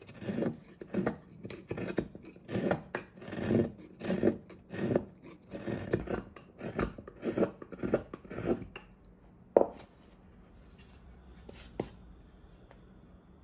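Carving gouge pushed by hand through hard wild cherry wood: about a dozen short shaving cuts at a rate of more than one a second. The cutting stops about two-thirds of the way in. A sharp knock follows, then a fainter click about two seconds later.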